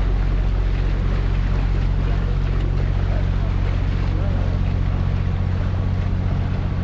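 Open canal tour boat under way: its motor hums steadily beneath the churn of water thrown up in its wake.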